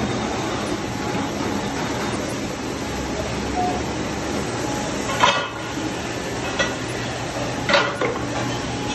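Steady machinery noise of a granite flaming line running, with three sharp metallic clinks: one about five seconds in, a fainter one a second later, and another near the end.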